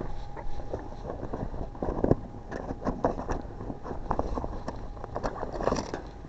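Scattered clicks, taps and rattles of a locksmith's car-opening tools being handled and worked at a car door, thickest in the middle. They sit over a steady low rumble and a faint steady hum.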